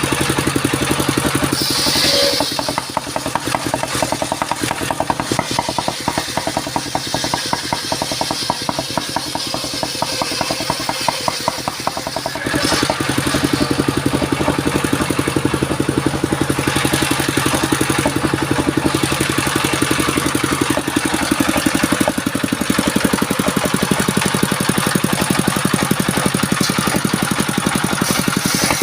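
Engine of a wood-cutting circular saw machine running steadily with a regular pulsing hum. It drops a little about two seconds in and picks up again about twelve seconds in.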